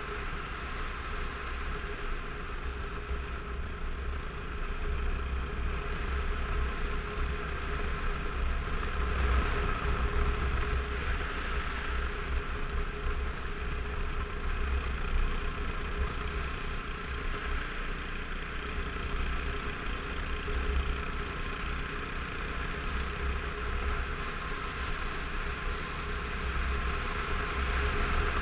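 Dual-sport motorcycle engine running steadily while riding on a gravel road, with a heavy wind rumble on the helmet-mounted microphone.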